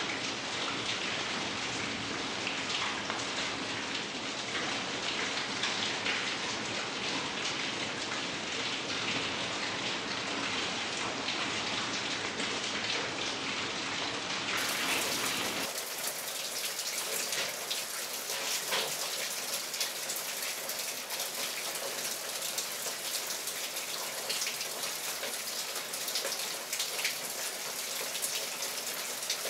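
Steady rain falling, a continuous hiss flecked with many separate drop hits. About halfway through the sound changes abruptly, losing its low rumble and turning brighter.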